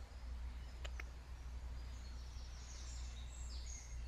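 Outdoor ambience: a steady low rumble, two short clicks about a second in, then small birds chirping in short high calls through the second half.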